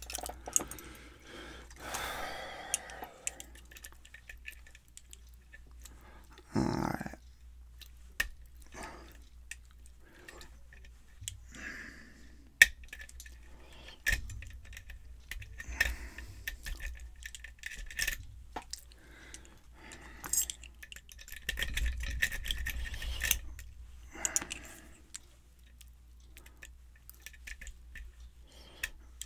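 Lock picking on a brass Yale pin-tumbler cylinder: irregular small metallic clicks and scratches of the pick working the pins, with occasional rubbing and handling noise.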